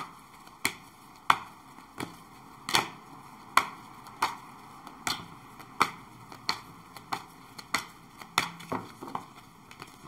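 Tarot cards being shuffled by hand: a sharp slap or click of the cards about every two-thirds of a second, in a steady rhythm.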